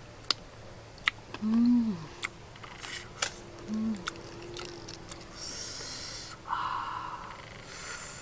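A person eating cooked river clams by sucking the meat out of the shells: sharp sucking clicks and short hissing slurps. There are two short hummed "mmm"s of relish, the first, about a second and a half in, the loudest sound, and the second about four seconds in.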